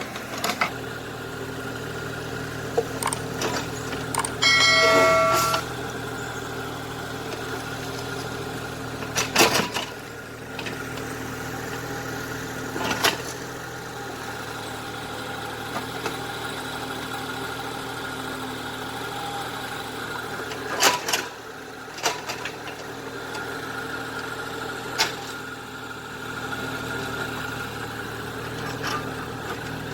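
Small excavator's engine running steadily, with a few sharp knocks of the working machine. About five seconds in, a brief, loud high pitched tone sounds.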